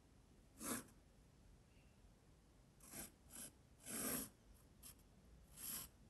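Graphite pencil sketching on watercolour paper: about five short scratchy strokes, the longest and loudest about four seconds in.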